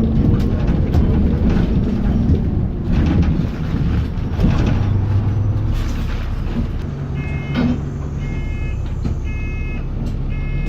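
Alexander Dennis Enviro400 double-decker bus heard from inside, its engine and road noise running, and from about seven seconds in a warning beeper starts sounding, short beeps about once a second.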